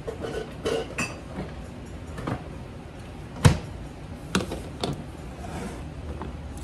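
Kitchenware being handled: a few clinks and knocks as a plastic funnel is set on a glass jar and a glass measuring cup is picked up, with one sharp knock, the loudest, about halfway through.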